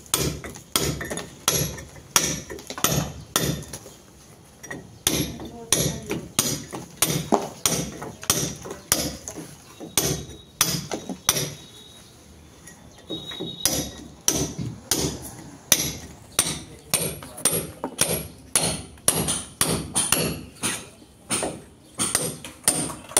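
Hammer striking a steel chisel, chipping out a groove in a brick wall to chase a channel for wiring: sharp blows about two a second, with a couple of short pauses.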